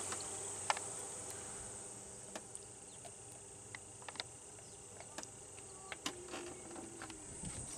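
A steady high insect buzz, with a few light metallic clicks spread through it as a hydraulic roller lifter is worked up out of its bore in the engine block.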